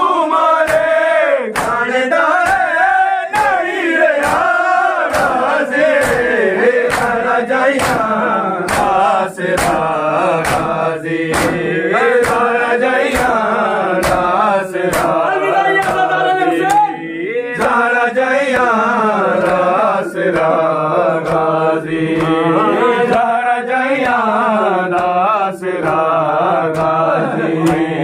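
Men's voices chanting a Punjabi nauha lament together, over a steady beat of sharp slaps from matam, hands striking chests in time with the chant.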